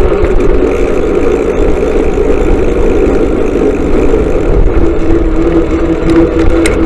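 Motorcycle engine running steadily over a heavy low rumble, its pitch dropping a little about five seconds in.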